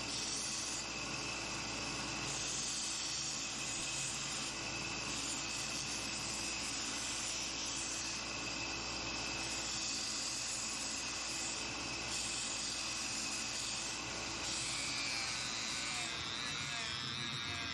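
A small electric motor running steadily with a high, even whine.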